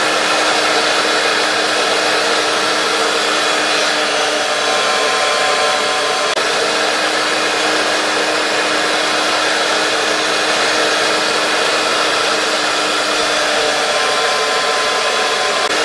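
DeWalt DW735 thickness planer running steadily: its motor, cutterhead and chip-ejection fan make a loud, even noise with a steady hum. A test board goes through for a very light skim cut on each face.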